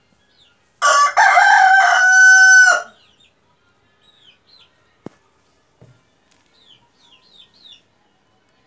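Desi (native South Asian) rooster crowing once, loud, about two seconds long: a short opening note, then a long held note that stops cleanly. Faint small-bird chirps follow.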